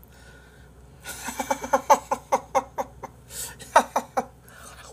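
A man giggling: a quick run of short voiced chuckles, about five a second, starting about a second in, then a few more near the end.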